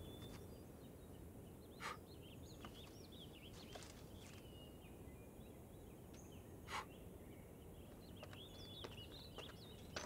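Faint birdsong: small birds chirping in short, high twitters over a low, steady background noise, with two brief clicks, about two seconds in and near seven seconds.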